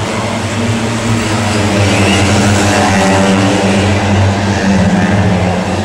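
Vehicle engines running steadily, growing louder over the first couple of seconds and then holding.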